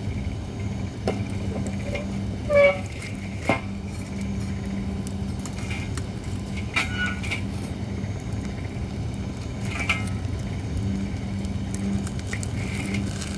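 Holly firewood burning in a campfire, crackling with scattered sharp pops, the loudest about two and a half seconds in.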